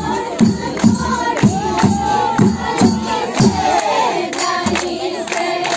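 Live bihu music: a group of women singing a bihu song over dhol drum beats, about two a second, with cymbal clashes. The drumming drops away about three and a half seconds in while the singing goes on.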